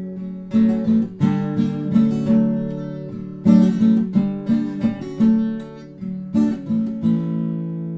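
Music: acoustic guitar strumming chords in an instrumental break of a song, with the last chord left ringing near the end.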